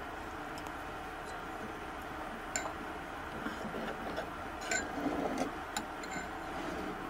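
Light clinks and taps of kitchen utensils against cookware while cooking, clustered from about two and a half to six seconds in, over a steady background hum.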